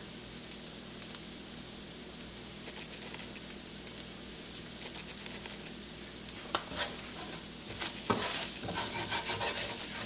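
Onion and spice masala sizzling steadily in a stainless steel frying pan; from about six and a half seconds in, a wooden spoon stirs and scrapes it around the pan with light clicks against the metal.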